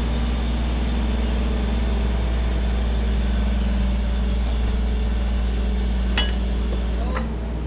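A heavy machine's engine running steadily at a constant speed, with one sharp click about six seconds in.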